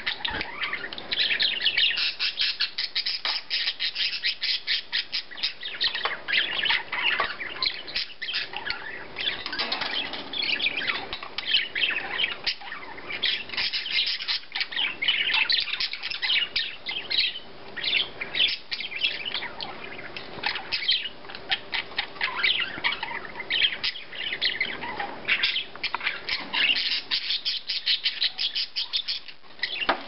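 Pet budgies (budgerigars) chattering: a fast, unbroken stream of chirps, warbles and squawks.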